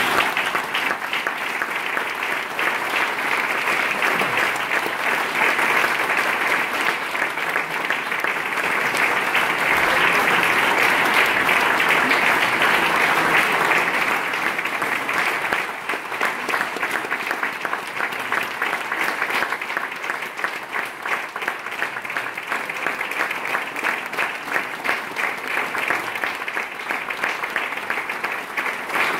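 Audience applauding. It builds to its fullest about ten to fourteen seconds in, then thins out, so that single claps stand out.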